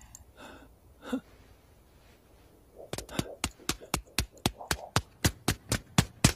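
Tap-dancing: sharp taps on ice in a steady rhythm, about four a second, starting about three seconds in after a near-quiet stretch with a couple of faint breaths.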